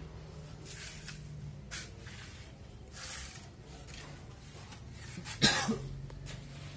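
A person coughs once, loudly, about five and a half seconds in, over a steady low hum.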